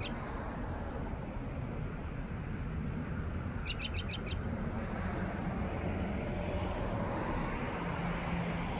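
A bird calls once, a quick run of about six short high chirps a little over three seconds in, over a steady low outdoor rumble.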